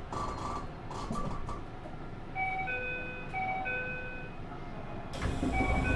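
An electronic chime plays a repeating melody of clear steady notes, starting about two seconds in, over the low rumble of the TX1000 series train at its stop. About five seconds in, a sudden rush of noise makes everything louder, and the chime goes on through it.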